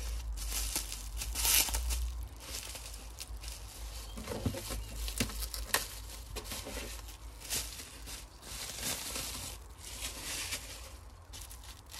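Clear plastic film wrapping crinkling and rustling in irregular handfuls as it is pulled off a potted cactus.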